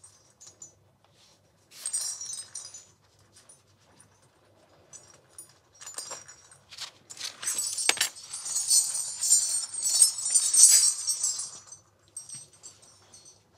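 Salangai (ankle bells) jingling as a foley artist runs with them tied on his feet: a short burst about two seconds in, then a longer, louder run of jingling with a few knocks from about seven to twelve seconds in.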